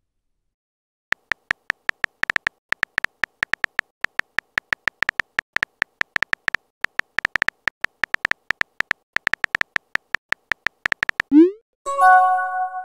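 Simulated phone-keyboard typing clicks, rapid and irregular, for about ten seconds as a message is typed. Then a quick rising whoosh as it sends, and a short multi-tone chime near the end.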